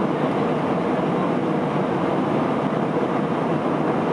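Steady cabin noise of an Airbus A319 in flight: the jet engines and the airflow past the fuselage as an even rush, with a faint steady tone in it.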